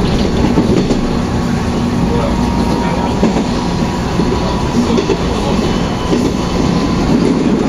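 Taiwan Railways passenger train running on the rails, heard from inside the carriage as a steady rumble.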